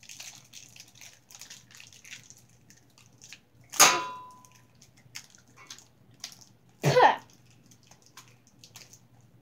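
Blind-bag toy packaging crinkling and rustling as it is torn and handled. A sharp loud snap comes about four seconds in, and another short loud sound about seven seconds in.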